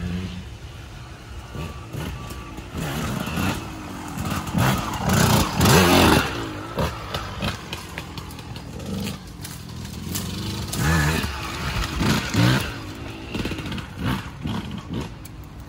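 Off-road motorcycle engine revving on a trail, its pitch rising and falling as the throttle opens and closes. It is loudest about five to six seconds in and again around eleven to twelve seconds.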